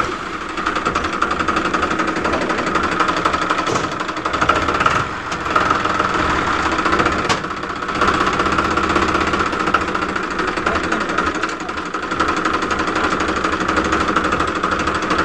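Small engine running steadily with a fast, even knocking rattle, like a tractor engine.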